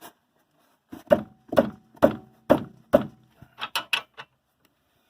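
Five sharp metallic knocks about half a second apart, each ringing briefly, then a quick cluster of lighter clicks near the end: metal striking metal while working on a newly fitted stabilizer link on a Chevrolet Spin's front suspension.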